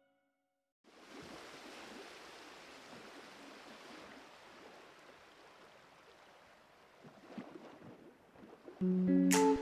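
Faint steady hiss of room noise, with a few soft handling sounds near the end from gloved hands working the top of soap batter in a silicone mould. Pitched music comes in loudly shortly before the end.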